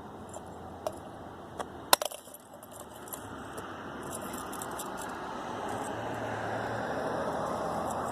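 Small clicks and rattles of a plastic security camera housing being pried apart and handled, with one sharp snap about two seconds in, over steady background noise.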